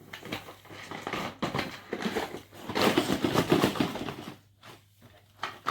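Crackling, rustling packaging being handled while toy parts are taken out of the box, loudest about three seconds in, then stopping.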